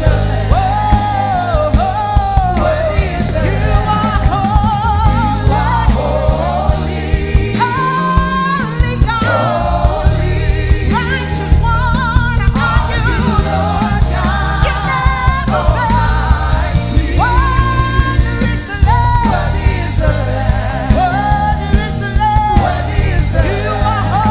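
Live gospel worship music: a band with a steady beat and full low end under wordless or unclear singing, with long, wavering held notes that slide between pitches.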